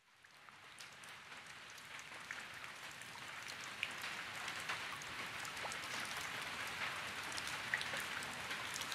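Rain falling: a steady hiss of rain with scattered drops ticking, fading in and slowly growing louder.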